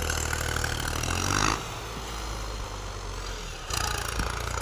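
Tractor engine running steadily as it pulls a cultivator through a field. The sound drops quieter for about two seconds in the middle, then comes back.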